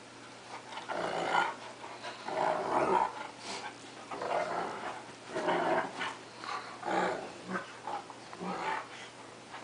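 A cocker spaniel and a wolf–Akita mix dog play-fighting, growling in a run of short, irregular bursts, one or two a second. The growls sound fierce but are play.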